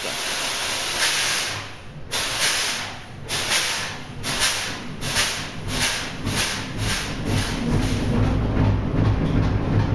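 Fairbanks Morse Model 32E five-cylinder two-stroke diesel being started on compressed air: a loud hiss of air, then puffs that come faster and faster as the engine turns over. From about seven seconds in it catches and runs with a low, steady exhaust beat.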